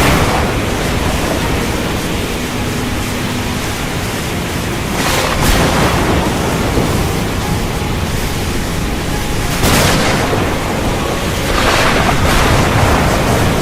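Steady heavy rain, a dense hiss with a low rumble underneath, swelling louder about five seconds in and again around ten and twelve seconds.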